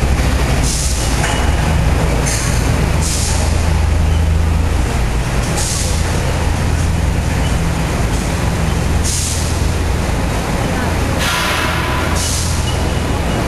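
Heavy tunnelling machinery running underground with a loud, steady low drone, broken every second or two by short hisses, one longer hiss about eleven seconds in.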